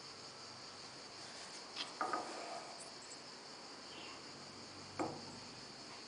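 A few light knocks and clatters as the opened aluminium housing of a viscous fan clutch is handled and turned on a cloth: one about two seconds in and another near the end. A steady high hiss runs underneath.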